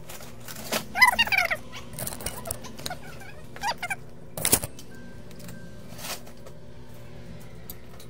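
Workbench handling noises: scattered clicks and knocks, the loudest about four and a half seconds in as the microscope monitor is moved. A short chirping squeak comes about a second in, and a fainter one just before four seconds, over a steady low equipment hum.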